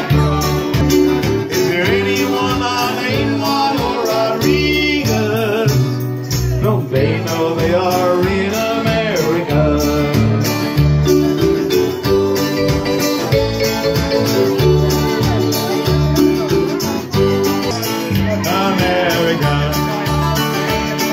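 Live band playing an instrumental passage: strummed acoustic guitar and electric keyboard over a moving bass line.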